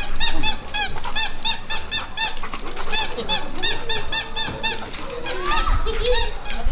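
Pink rubber squeaky dog toy squeezed over and over in quick runs, several high squeaks a second that each rise and fall in pitch, with short pauses between the runs.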